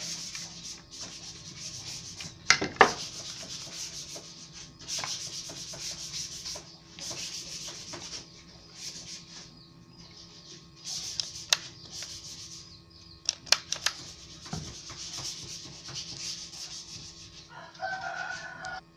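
Scraping and rubbing of a screwdriver and small parts against an electric hand planer's housing as it is handled and worked on, with a few sharp clicks.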